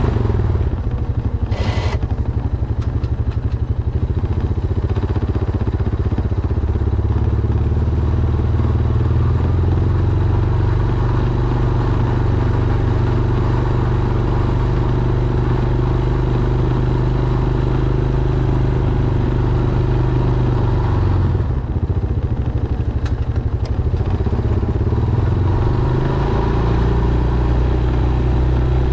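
Honda Foreman ATV's single-cylinder engine running steadily while plowing snow, its pitch falling and rising with the throttle. There is a short sharp noise about two seconds in.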